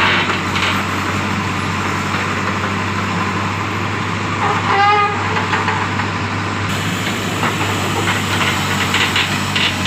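Heavy diesel engine running steadily. About five seconds in there is a short wavering pitched tone lasting under a second.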